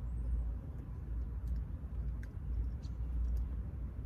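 A few faint clicks of plastic airbag connector plugs being handled and pressed in, over a steady low rumble.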